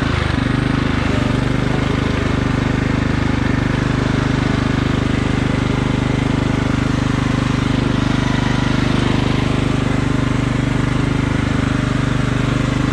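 Riding lawn mower's small engine running at a steady speed as the mower drives through mud and tall grass.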